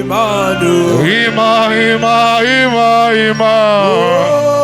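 Worship music: a man singing long, wavering notes in a chant-like style over steady, sustained low chords.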